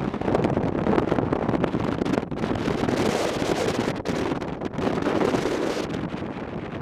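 Wind buffeting the microphone on a moving motorcycle, a loud, uneven rush that swells and eases, hissing higher around the middle.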